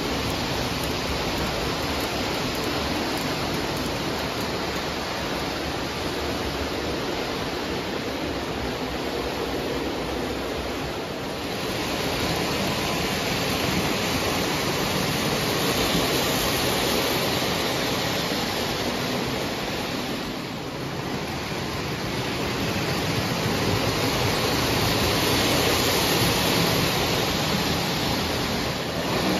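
Lionel O-gauge toy trains running on tubular three-rail track: a steady rushing whir of wheels and motors that dips briefly twice, about a third and two-thirds of the way through, as the trains pass.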